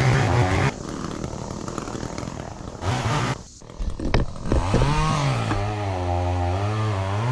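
Two-stroke gas chainsaw revving in bursts, loud at the start and again about three seconds in, with a brief drop-off just after, then running steadily at a lower, slightly wavering pitch.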